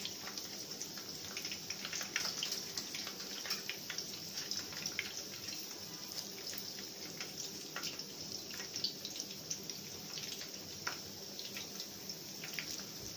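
Egg-dipped kababs shallow-frying in hot oil in a pan: a steady sizzle with frequent small crackling pops.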